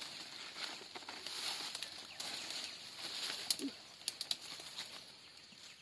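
Leaves and twigs rustling as someone pushes through forest undergrowth, with a few sharp clicks about halfway through.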